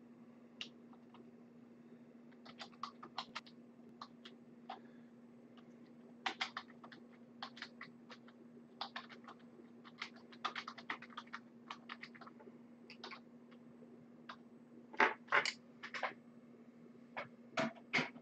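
Irregular light clicks and taps, in short runs like typing on a computer keyboard, with a few louder clicks near the end, over a steady low hum.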